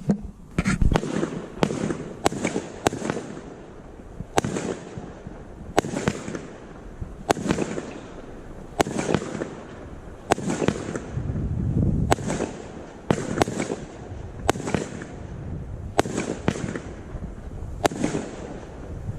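Guy Fawkes 'Ammo Crate' 1.3G firework barrage firing a rapid, irregular string of shots, about one or two sharp bangs a second, each trailing off into bursting and crackle.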